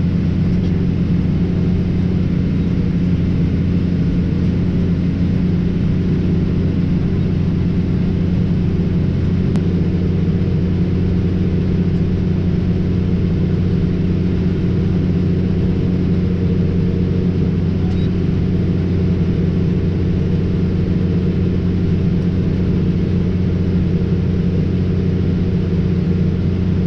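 Tractor engine running steadily under load while pulling a round baler: an even, unbroken low drone.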